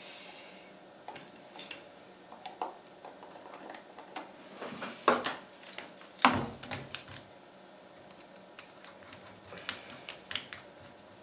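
Scattered light clicks and knocks of tools and small parts being handled on a workbench, as a cordless drill is picked up and a bit is fitted into its chuck. There are two louder knocks about five and six seconds in.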